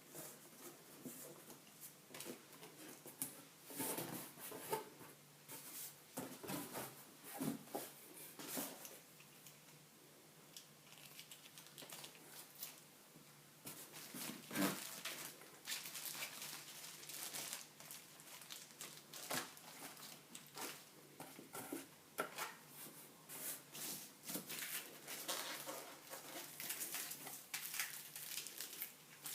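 Packaging being handled: irregular crinkling, rustling and tearing with scattered clicks and knocks, and a sharper knock about halfway through.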